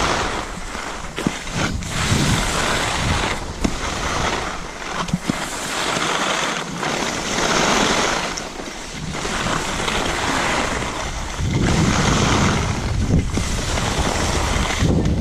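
Skis hissing and scraping over packed snow on a fast downhill run, with wind buffeting the microphone. The rush swells and fades from turn to turn, with a few sharp clicks along the way.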